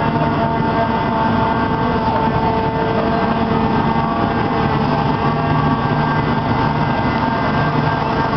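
The Grand Éléphant walking machine's diesel engine and hydraulics running as it walks, a steady mechanical drone with a held hum. The low hum eases off for a few seconds and swells again about halfway through.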